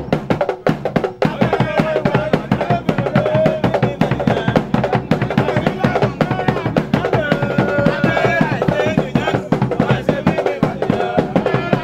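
Traditional drum ensemble: several rope-laced drums struck with curved sticks and hands in a fast, dense rhythm, with a voice singing over it.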